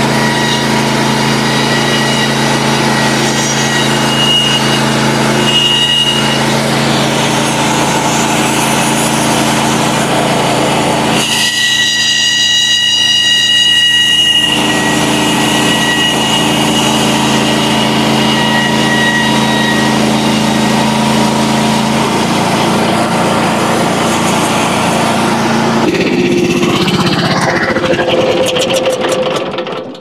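Frontier OS27 portable band sawmill running under load, its small gas engine driving the band blade through a white oak log. A few seconds of higher ringing tones come in near the middle: chatter in the cut, which the sawyer puts down to feeding too slowly, though he is not sure. The sound dies away at the very end.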